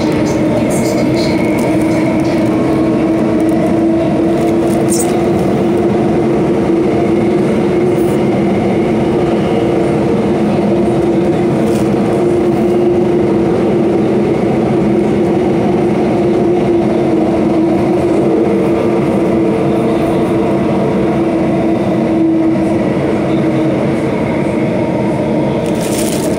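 Singapore MRT Circle Line train running steadily through a tunnel, heard from the front car: a continuous rumble of wheels on rail with a steady hum.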